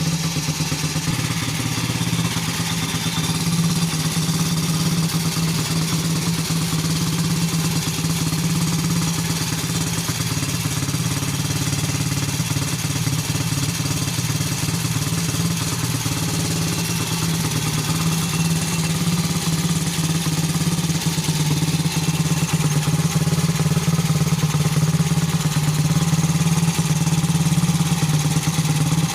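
Terrot 125 ETDS motorcycle's single-cylinder two-stroke engine running steadily at idle, getting a little louder in the last several seconds.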